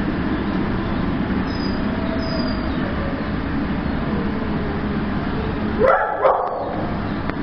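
Dogs barking in a shelter kennel, a steady din of many barks, with two louder yelps rising in pitch close together near the end.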